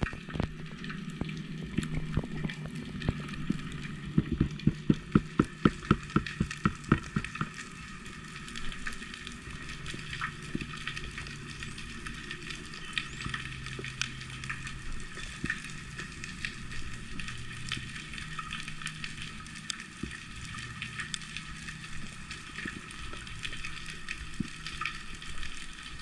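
Underwater ambience picked up by the camera: a steady crackling hiss like that of snapping shrimp on a reef. During the first several seconds there is a run of loud knocks, about two a second, that then stops.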